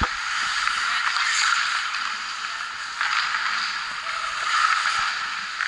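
Ice hockey skate blades scraping and hissing across the ice in long strides, the scrape swelling and easing, with a fresh surge about three seconds in. A single sharp knock comes right at the start.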